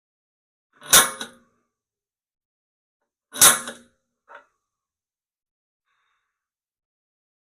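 Hammer striking a center punch against the steel loader bucket twice, about two and a half seconds apart, each a sharp metal strike with brief ringing, marking hole positions for drilling. A faint small knock follows the second strike.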